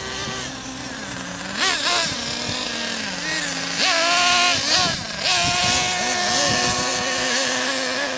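Small nitro (glow-fuel) engines of two RC buggies running and revving, their pitch climbing and falling as the throttles open and close, with wind noise on the microphone surging in gusts.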